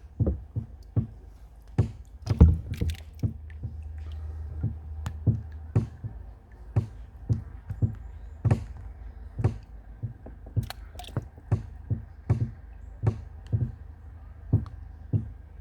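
Hollow knocks against a kayak hull, about one or two a second, as water slaps against it, over a low steady hum.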